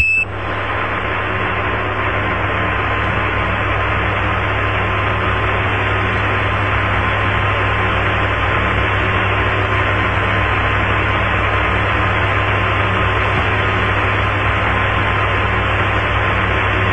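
Apollo air-to-ground radio channel left open with no one talking: steady static hiss with a low hum and a faint steady tone underneath. A short high Quindar beep marks the end of a transmission right at the start.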